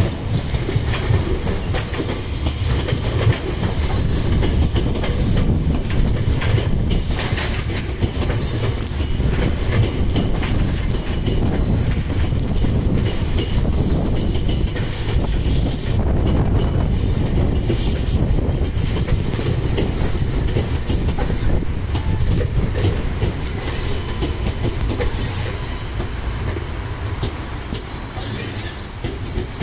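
Electric commuter trains running past on the tracks, including a Semboku Rapid Railway train close by. The wheels make a steady rumble on the rails, easing slightly near the end.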